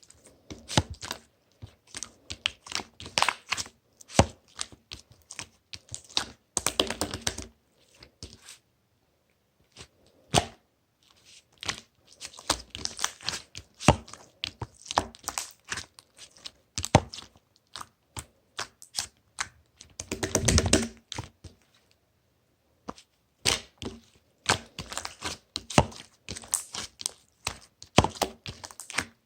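Hands squishing and pressing slime: rapid runs of sticky clicks and pops in spurts, with short pauses about a third of the way in and again about three quarters through.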